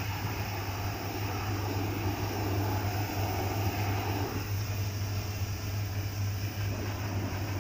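Karcher HDS 9/18 hot-water pressure washer running with a steady low hum, its jet hissing against the metal of a diesel locomotive engine block. The spray hiss softens about four seconds in.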